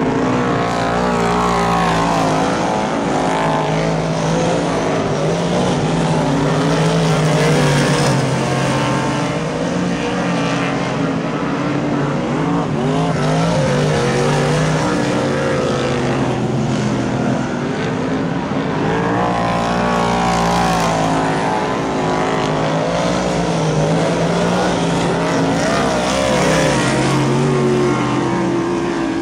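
Speedway race car engines running on a dirt oval, several at once, their pitch rising and falling continuously as the cars accelerate and back off through the corners.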